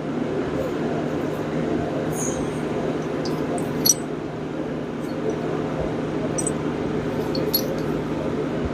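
Light metallic clicks and clinks as steel head bolts are set into the cylinder head, one by one. They sound over a steady whir with a low hum.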